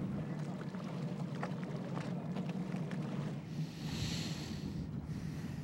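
A boat's engine running steadily, with wind noise on the microphone and a louder rush of hiss about four seconds in.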